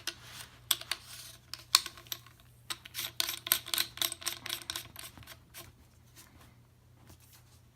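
Sharp metal clicks and clinks of formed freeze-plug baffles being pushed and seated into a titanium suppressor tube, with a quick run of clicks about three to five seconds in, then only a few.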